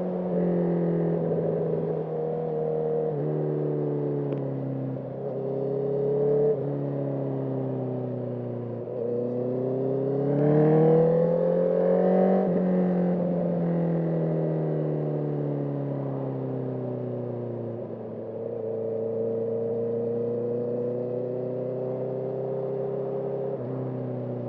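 Motorcycle engine under hard acceleration. Its revs rise and drop sharply at each upshift, peak about halfway through, fall away steadily for several seconds, and then build gently again.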